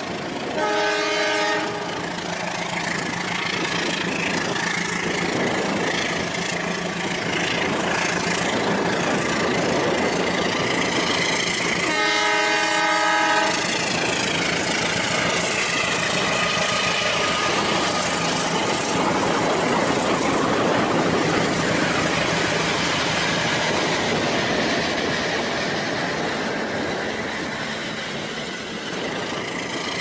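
Rail King remote-control toy train running on its plastic track, the motor and wheels giving a steady running clatter. A multi-note train horn sounds twice, about a second in and again about twelve seconds in, each blast lasting a second or so.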